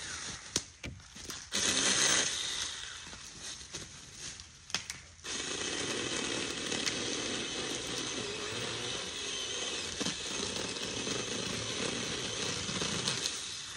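Small battery-powered handheld chainsaw whirring in a few short trigger bursts, then running steadily for about eight seconds from about five seconds in as it cuts into brush.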